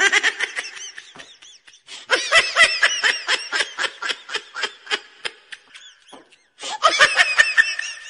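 Three separate bursts of human laughter in rapid, high-pitched pulses of 'ha-ha-ha'. The middle burst is the longest, and each one starts and stops abruptly.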